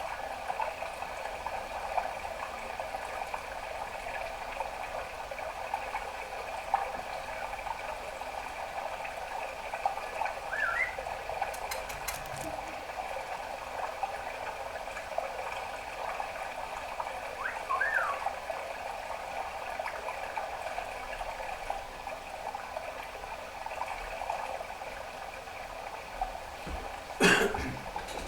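Budgerigar's soft, continuous chattering, with two short rising chirps and a sharp click near the end.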